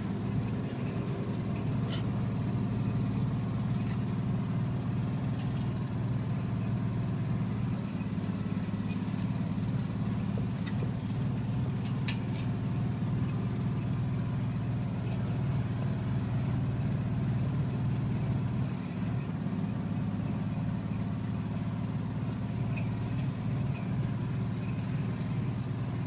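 A vehicle's engine running steadily as it drives along a dirt trail, a constant low drone, with a few faint clicks.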